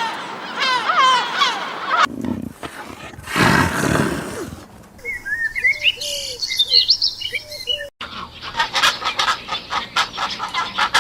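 Several short animal-call recordings cut together, with quick high chirps among them that sound like birds.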